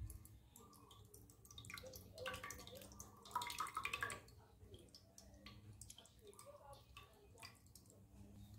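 Milk poured from a can into a bowl of raw eggs: a faint trickling splash, loudest from about two to four seconds in, then tailing off into soft drips.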